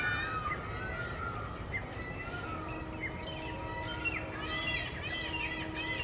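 Small birds chirping: many short calls that rise and fall in pitch, turning into a fast run of repeated chirps, about four a second, in the last second and a half. A faint steady hum sits underneath.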